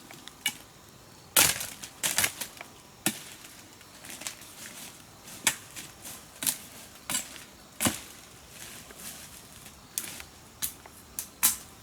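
Irregular sharp knocks and cracks, around eighteen with uneven gaps, the loudest about a second and a half in.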